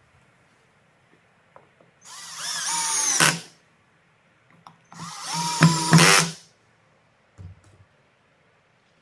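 Power drill running in two bursts of about a second and a half each, its whine dropping in pitch as it takes load, with a few light knocks of wood being handled between them.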